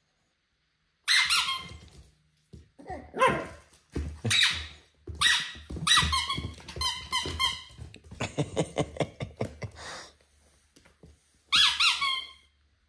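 Eight-week-old Border Terrier puppy yapping in short, high-pitched bursts while tugging at a toy, with a rapid pulsing stretch about eight seconds in.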